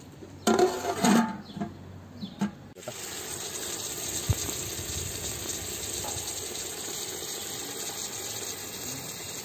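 Guinea fowl curry sizzling steadily in an aluminium pot over a wood fire: an even hiss that starts about three seconds in, with a single knock a little after that.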